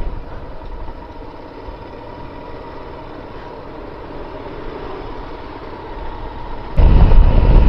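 Royal Enfield Himalayan motorcycle under way: a steady low rumble of engine and riding noise. It suddenly gets much louder near the end.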